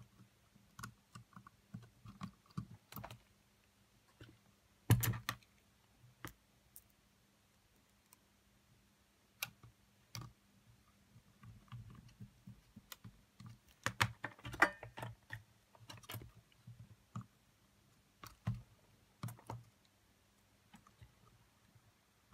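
Irregular small clicks and taps of plastic and metal parts being handled and pressed into place inside an opened Sony WM-FX811 cassette Walkman. The loudest click comes about five seconds in, with a quick run of them around the middle.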